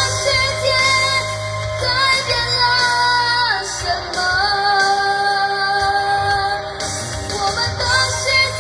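A child singing a song to a backing track, holding long notes with vibrato and sliding down in pitch about three and a half seconds in. The singer has a cold, with a blocked nose and a hoarse voice.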